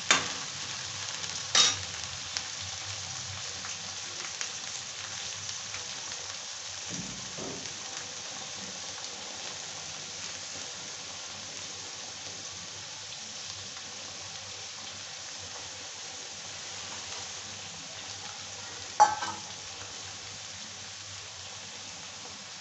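Onions and chickpeas frying in oil in a kadhai, a steady sizzling hiss that eases a little over time. A metal spatula clicks sharply against the pan twice in the first couple of seconds and once more, loudest, near the end.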